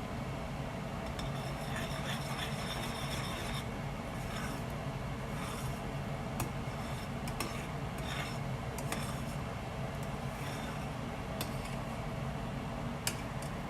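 A spoon stirring a pan of sugar syrup with agar-agar, scraping the bottom and sides in irregular rasping strokes, over a steady low hum.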